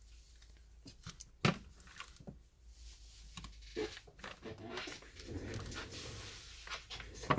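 Faint handling sounds of taking a tablet apart by hand: a few sharp plastic clicks and some soft scraping and rustling as the digitizer is pulled back from the frame.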